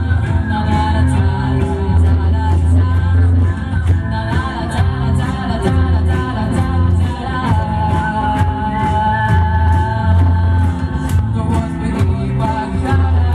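Live rock band playing loudly with a singer, over a heavy bass line and drums with cymbal hits on a steady beat. A long note is held from about seven and a half seconds in to about nine seconds.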